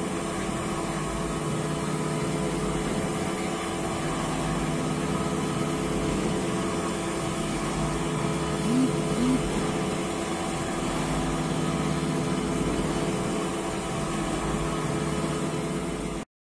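CNC machining center face-milling a block with an insert face mill. The spindle runs steadily under cut with continuous cutting noise, and there are two short chirps about halfway through.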